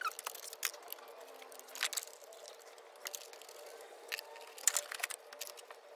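Scattered light clicks and taps of metal hand tools and bolts during engine reassembly, a few seconds apart, over a faint steady hum.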